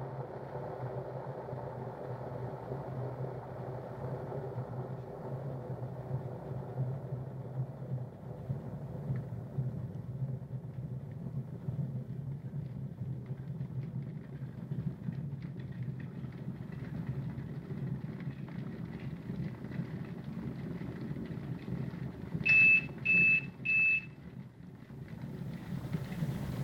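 Electric kettle heating water: a steady low rumble, with faint crackling ticks growing from about halfway, then three short beeps near the end that signal it has come to the boil.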